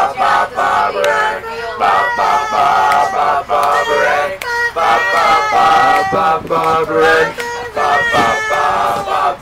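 Teenage boys singing a tune loudly together, unaccompanied, with long held notes.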